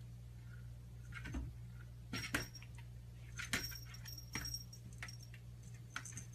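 Small bell on a cat's collar jingling in a handful of short bursts as the cat stands and paws at a closet door, mixed with light taps of its paws on the door. A faint steady hum lies underneath.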